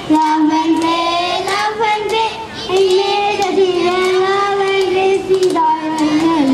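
Young children singing a song, the melody moving in long held notes phrase after phrase.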